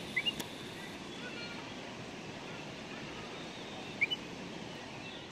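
Steady outdoor background hiss with a few short, high bird chirps: a pair about a quarter second in and another about four seconds in.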